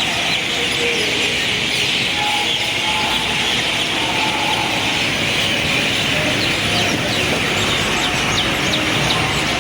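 Many small birds chirping together in a dense, continuous chatter over a steady low rumble of city traffic. A few short, higher tones sound here and there.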